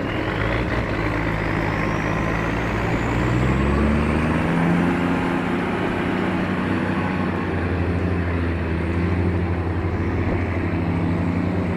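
A heavy truck's diesel engine running under load, its pitch shifting a few seconds in, with a faint high whine rising over the first several seconds.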